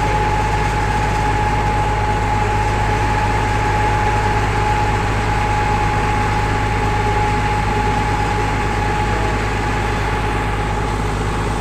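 Sewer vacuum truck's engine and pump running steadily while it sucks water out of a blocked manhole: a deep drone with a constant whine over it.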